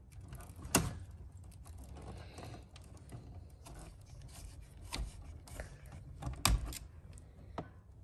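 Hands working wires inside an electrical breaker panel: faint rustling and scraping, with a few sharp clicks and knocks, the loudest about six and a half seconds in.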